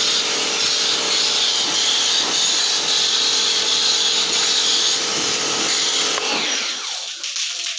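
Handheld electric sprayer running, its small motor whirring with a steady hiss as it sprays soap solution onto an air conditioner's filter grille. The motor sound drops away about six seconds in.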